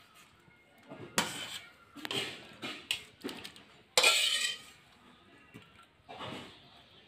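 Irregular short scraping and cutting strokes as onions and small potatoes are peeled against a bonti's curved iron blade, the loudest about four seconds in.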